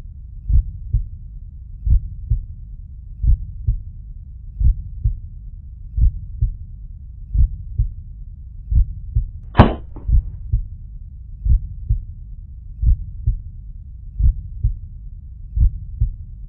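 Heartbeat sound effect: a slow lub-dub double thump repeating about every 1.3 seconds. About ten seconds in, one sharp crack cuts across it, the shot from the suppressed .22 pellet air pistol.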